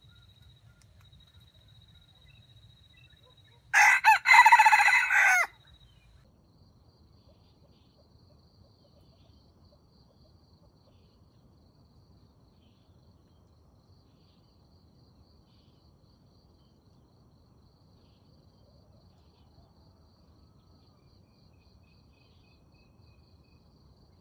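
A red junglefowl rooster crows once, about four seconds in: a short, loud, broken crow lasting about a second and a half. A faint steady insect trill runs under it.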